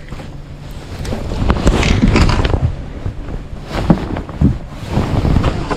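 Wind rumbling on the microphone, with irregular knocks and rustles from about a second and a half in.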